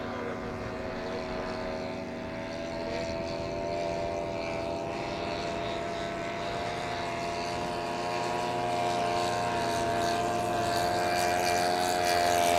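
Engines of large-scale radio-controlled WW1 scout biplane models droning steadily in flight, their pitch wavering slightly and the sound growing louder over the last few seconds as the planes come in lower.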